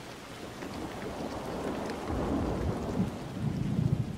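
Steady rain with a low thunder rumble that builds from about halfway through and is loudest near the end.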